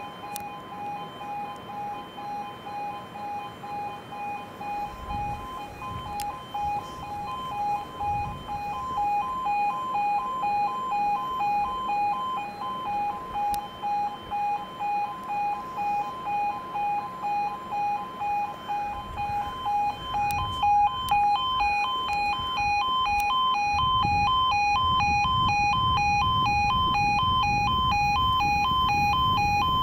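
E2S Appello level-crossing alarm at an automatic half barrier crossing, sounding a steady pulsing two-tone warble: the barriers are down and a train is due. A low rumble builds under it in the last third.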